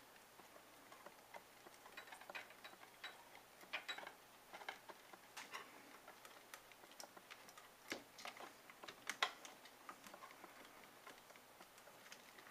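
Faint, irregular clicks and taps of a laptop SATA hard drive and its plastic USB enclosure being handled as the drive is worked onto the enclosure's SATA connector.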